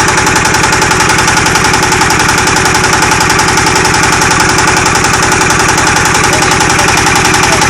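Power tiller's single-cylinder diesel engine running steadily with a rapid, even beat, driving an attached garlic harvester.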